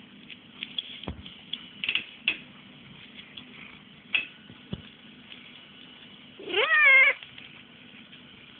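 Domestic cat meowing once, one short call that rises in pitch and then holds, near the end. Before it come a few scattered clicks and taps.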